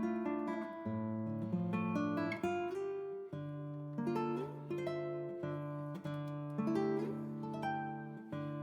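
Background music: an acoustic guitar playing plucked and strummed chords, the chords changing every second or so.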